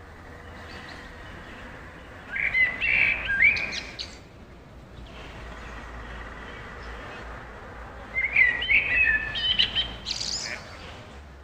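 Small songbirds chirping in woodland: two bouts of quick, high-pitched chirps and trills, the first about two seconds in and the second near eight seconds in, over a steady faint background hiss.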